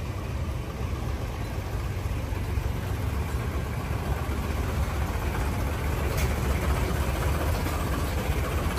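Boat engine running steadily, a low-pitched drone.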